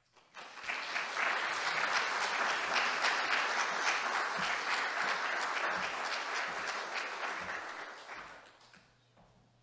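Audience applauding: many people clapping, starting about half a second in, holding steady, then dying away near the end.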